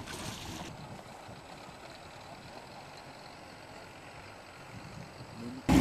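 Small boat outboard motor running, faint and steady, as the boat moves off across the water. Near the end the sound jumps abruptly to the outboard running loud and close.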